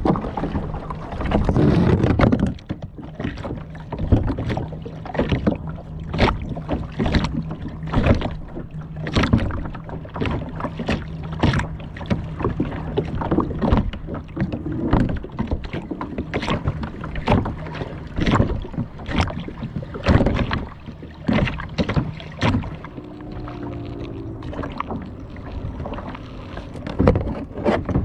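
Kayak on open water: irregular splashes and knocks against the hull, one or two a second, over a steady low hum.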